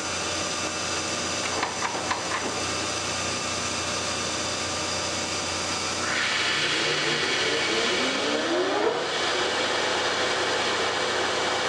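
Large Monarch engine lathe spindle spinning up a big four-jaw chuck holding an out-of-balance clutch arm, over the steady hum of the running machine. About six seconds in, a rush of air rises as the chuck comes up to speed, with a whine climbing in pitch.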